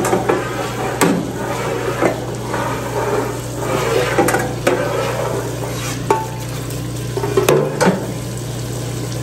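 Hot frying oil spraying from a filter machine's stainless steel wand into an empty fryer vat, splashing over the steel, over the steady low hum of the filter machine's pump. The metal wand knocks and scrapes against the vat several times, sharply about a second in and twice close together near the end.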